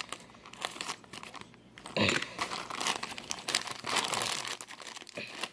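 Scissors snipping into a package mailer bag, then the wrapping crinkling and rustling as a hand pulls it open, loudest from about two seconds in.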